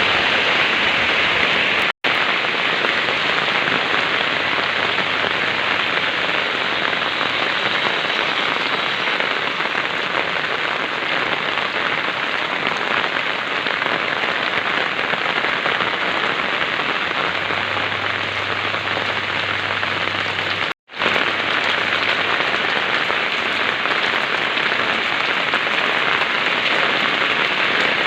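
Heavy rain pouring down in a steady, even hiss. The sound cuts out for an instant twice, about two seconds in and again about twenty-one seconds in.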